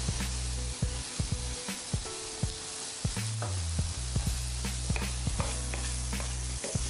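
Sliced shiitake and maitake mushrooms sizzling in butter in a frying pan, with scattered pops and clicks. Near the end they are stirred with a wooden spatula.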